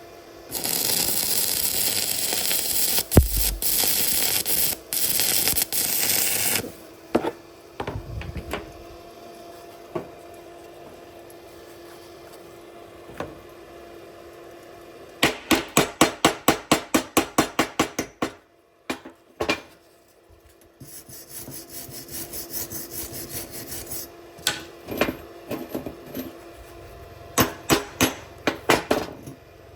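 Metalworking on steel: a few seconds of loud, steady hissing crackle, then scattered knocks and runs of rapid, even tool strokes, about six a second.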